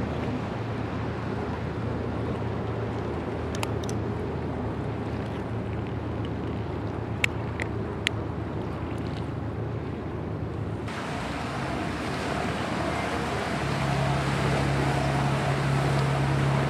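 Distant trains crossing the lagoon railway bridge: a steady low rumble mixed with wind and water noise, with a few sharp clicks in the middle. The hiss grows brighter past the halfway point, and a steady low hum joins it near the end.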